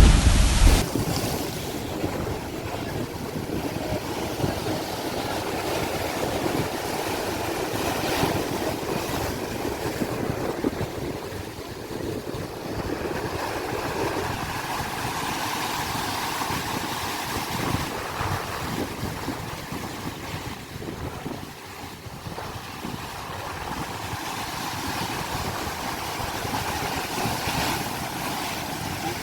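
Sea waves washing in, a continuous surf noise that slowly swells and eases in loudness. A loud low rumble stops about a second in.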